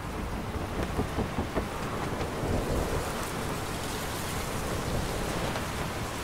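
Thunderstorm sound: a steady wash of storm wind with heavy low thunder rumbling.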